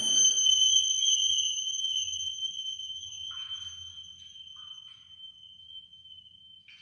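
Film-score sound design: the tail of a loud orchestral hit dies away, leaving a single high-pitched ringing tone. The tone fades slowly over several seconds. A few faint short blips sound about three and four and a half seconds in.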